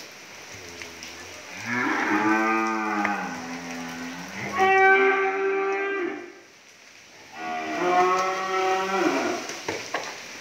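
Cattle mooing: three long moos, each lasting over a second, the first bending up and down in pitch.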